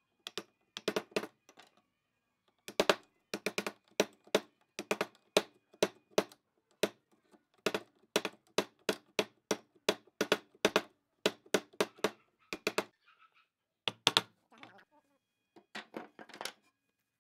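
Wooden mallet striking the handle of a steel chisel again and again, chopping a mortise into a frame of laminated wood strips: sharp knocks about two to three a second in bursts, with brief pauses. A few lighter knocks near the end.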